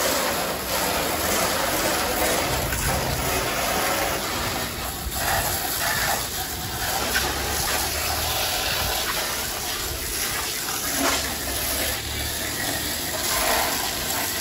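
Pressure washer jet spraying water against a car body, a steady loud hiss that rises and falls slightly as the spray moves.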